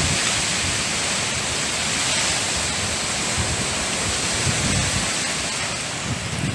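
Typhoon wind blowing hard through palm trees: a steady, unbroken rush of noise.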